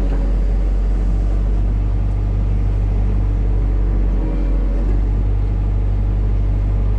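Hitachi excavator's diesel engine running steadily with a deep hum. The hum dips briefly about four seconds in and then comes back slightly stronger.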